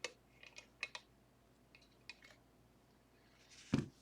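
Small sharp clicks and taps of metal lock-picking tools and a pin-tumbler lock being handled, then one louder thump near the end, as of something set down.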